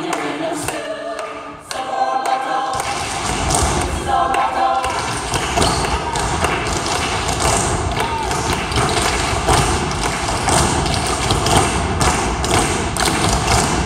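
A cast singing together in chorus, then from about three seconds in a dense, steady clatter of thuds from many feet stamping and dancing on a stage floor.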